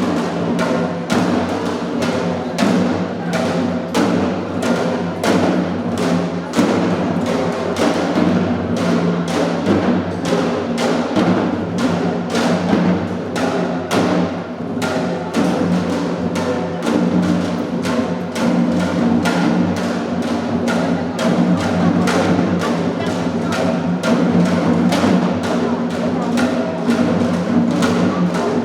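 Percussion music: drums struck in a steady, fast beat, about three strokes a second, over sustained low tones.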